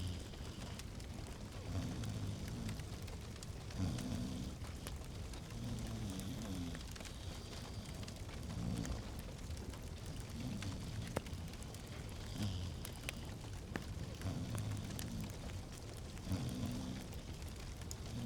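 Wood fire in a fireplace crackling, with scattered sharp pops over a steady low rumble of flames that swells every second or two.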